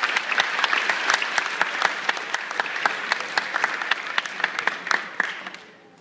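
Audience applauding in a hall, dense clapping that dies away near the end.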